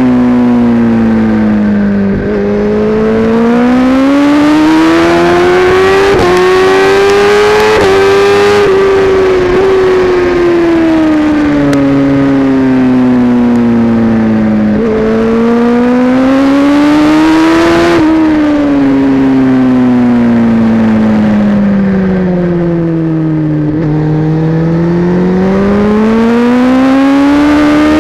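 Kawasaki Ninja ZX-10R's inline-four engine through an Akrapovic exhaust, heard onboard at racing speed. The revs climb hard under acceleration and fall away into the corners, three long rise-and-fall sweeps, with short ticks and steps in the note at the gear changes.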